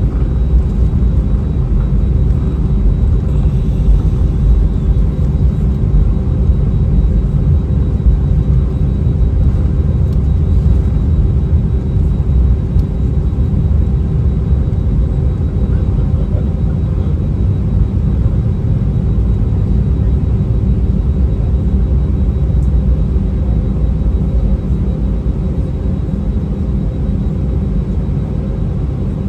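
Airbus A319 cabin noise: a loud, steady rumble of engines and airflow with a faint constant hum on top.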